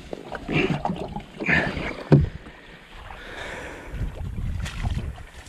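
Hull of a stranded Sea-Doo being shoved and dragged by hand through mud and shallow water, with irregular scraping and sloshing and one sharp knock about two seconds in. No engine is running.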